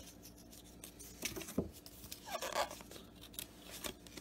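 Baseball cards being handled and shuffled by hand: stiff cardboard cards sliding and flicking against one another, a quiet run of small clicks and rustles with a couple of louder scrapes in the middle.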